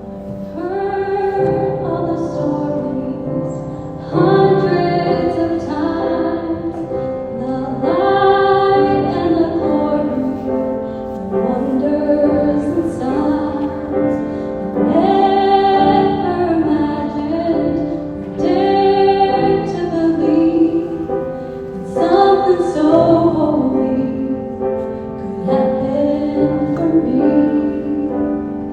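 Music: a song with a woman singing, phrase after phrase, over steady held chords.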